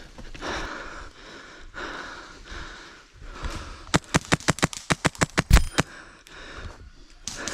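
Heavy breathing, then a fast string of about a dozen sharp airsoft gun shots in about two seconds, with one louder thud among them, and a few more shots near the end.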